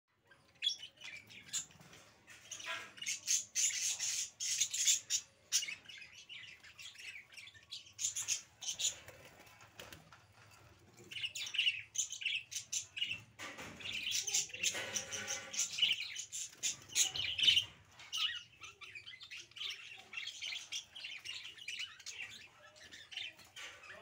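A group of budgerigars chirping and chattering in quick, high warbles almost without a break, with a lower, louder squawking stretch about halfway through.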